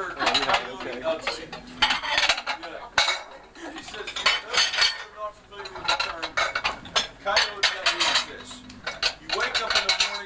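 Dishes and silverware clattering and clinking in a busy kitchen, in quick irregular knocks, with voices underneath.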